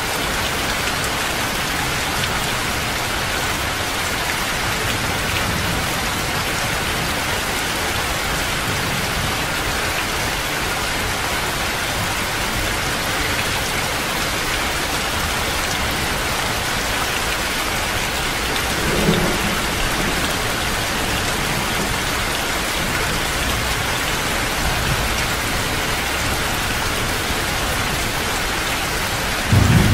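Steady heavy rain falling and pouring off a roof, with a short low rumble of thunder about two-thirds of the way through and a louder rumble starting just before the end.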